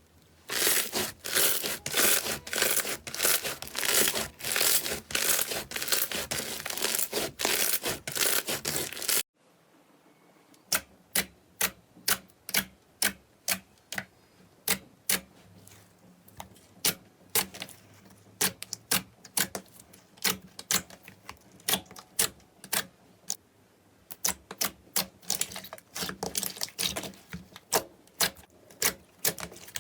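Slime being squeezed and worked in the hands, crackling densely with each squeeze. About nine seconds in it cuts to sharp separate clicks and pops, about two a second, as slime is pressed and poked.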